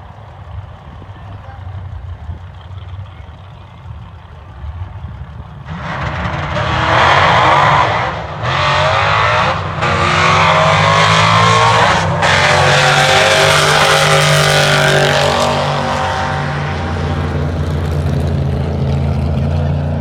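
A vehicle's engine idling, then going to full throttle about six seconds in and accelerating hard through the gears, shifted without lifting (power shifting). The pitch climbs in each gear and the sound cuts out briefly at each shift, three times in about six seconds; these dropouts are the hiccup the owner is asking about. It then settles to a steadier, duller running.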